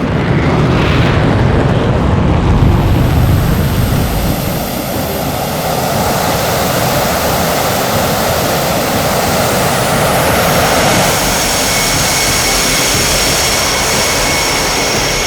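JAS 39 Gripen fighter jet's engine running loud. A deep rumble in the first few seconds gives way to a rushing roar, and steady high-pitched whining tones join in about two-thirds of the way through.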